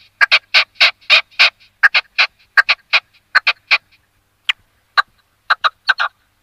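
Red-legged partridge calling: a run of short, harsh chuck notes, about three a second at first, then coming in pairs and thinning to scattered notes with pauses of up to a second, with a quick cluster near the end.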